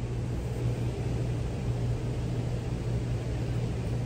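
Steady low hum with an even hiss underneath, unchanging throughout.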